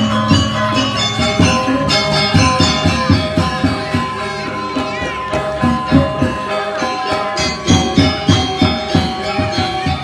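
Balinese gamelan orchestra playing: bronze metallophones and rows of kettle gongs ring in quick interlocking patterns over a dense run of short percussive strokes.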